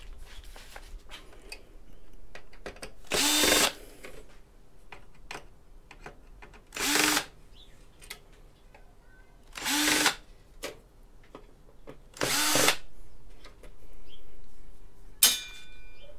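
Power drill-driver running in four short bursts of about half a second each, the motor spinning up sharply each time, backing out the screws that hold a daughter card to a circuit board. A sharp click near the end.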